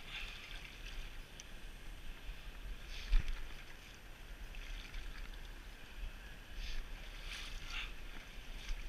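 River water running past a rocky bank, with wind rumbling on the microphone. A single bump about three seconds in, and a few brief louder surges of water noise near the end.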